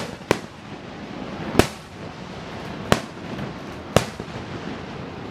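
Aerial firework shells bursting overhead: five sharp bangs at uneven spacing, roughly a second apart.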